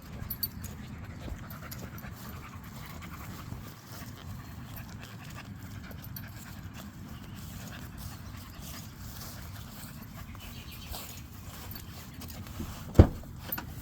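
A dog panting steadily over a low rumble of wind or handling noise, with a single sharp knock near the end.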